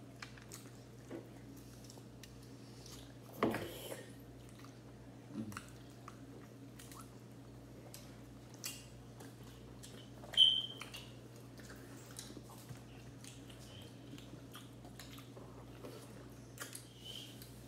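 People chewing and biting meat off roasted chicken legs, with many small wet mouth clicks and smacks over a steady low hum. There is a short louder sound about three and a half seconds in, and a brief high-pitched squeak about ten seconds in.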